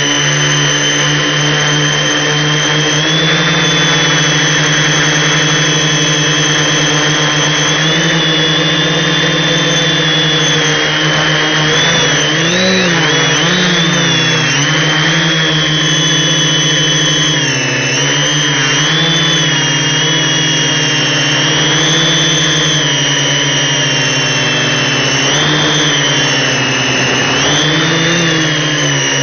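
Multirotor's electric motors and propellers buzzing steadily in flight, the pitch dipping and rising together several times as the throttle and attitude are corrected.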